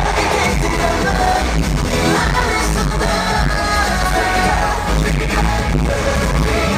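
K-pop dance track with male singing, played loud over a concert sound system, with a heavy, steady bass line.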